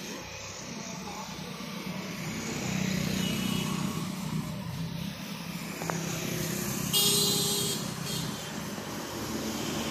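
Road traffic with motorcycles passing, a steady engine hum that grows louder through the middle, and a brief loud burst about seven seconds in.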